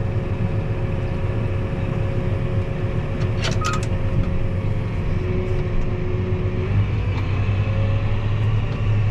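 Tractor engine running steadily under load, a low even hum with faint steady tones above it. A brief high-pitched chirp comes about three and a half seconds in.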